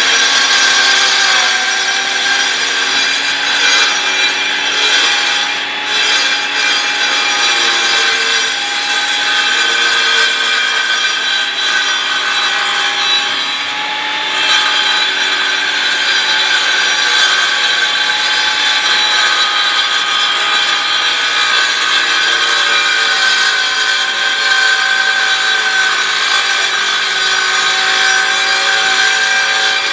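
Skilsaw circular saw on a Perfect Trac joint-cleaning cart running steadily, its blade grinding along a concrete floor joint to clean it out, a steady motor whine over the cutting noise. The level dips briefly twice.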